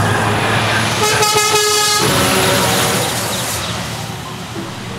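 Semi-truck driving past with engine and tyre noise. About a second in, a horn sounds for about a second. The noise then fades a little as the truck goes by.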